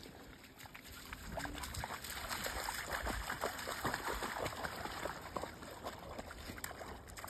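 A husky and a second dog wading through shallow creek water, their legs sloshing and splashing in quick, irregular splashes. The splashing builds about a second in and is busiest through the middle.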